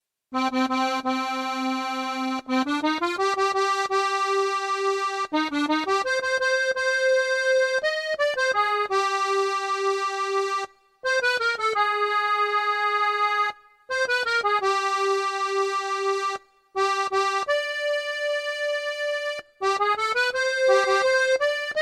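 Sampled accordion playing an instrumental introduction: a melody of held notes over light, repeated bass-and-chord notes, in phrases broken by brief pauses.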